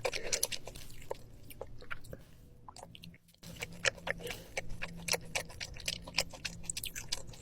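Close-miked chewing and mouth sounds of someone eating: many short, irregular wet clicks and smacks, with a brief break about three seconds in.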